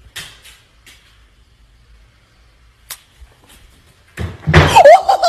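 A few faint clicks, then about four seconds in a sudden loud thud and scuffle as a cat leaps at a wooden coffee table, followed by a person's voice crying out.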